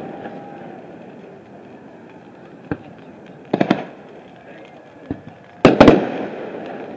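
Aerial fireworks shells bursting: a faint bang, then a pair of sharp bangs about three and a half seconds in, and a louder cluster of three near the end, each with an echoing tail.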